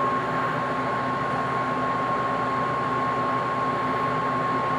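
Haier 5000 BTU window air conditioner's blower fan running on medium speed in fan-only mode, with the compressor off: a steady rush of air with a steady high whine.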